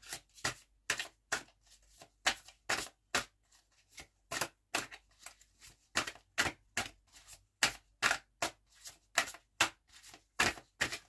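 A tarot deck being shuffled by hand: a steady run of short card slaps, about two or three a second.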